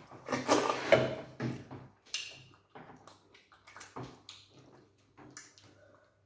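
Eating sounds: wet slurping and lip smacking of slimy okra soup eaten by hand with starch, loudest in the first two seconds, then softer scattered chewing and mouth clicks.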